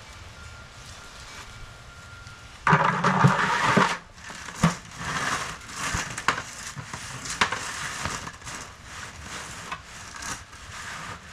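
A cast net being handled and untangled. A loud rustling crunch comes about three seconds in, followed by irregular rustling and sharp clicks.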